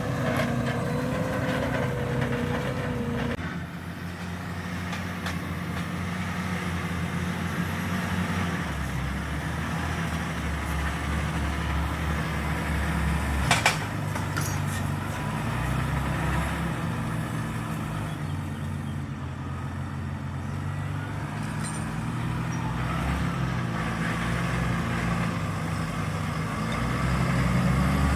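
Valtra Q Series tractor's diesel engine running steadily under load while pulling a Lemken five-furrow plough. A whine that is there at the start stops a few seconds in, and there is a single sharp click about halfway through.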